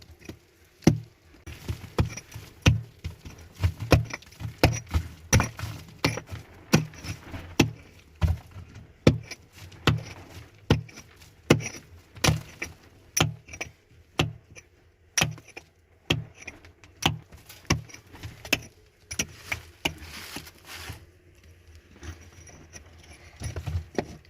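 A long run of sharp knocks, about one or two a second at an uneven pace, thinning out near the end.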